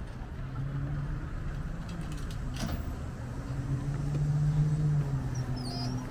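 Pickup truck engine running at idle, swelling briefly about four seconds in and then easing back, with low wind rumble on the microphone.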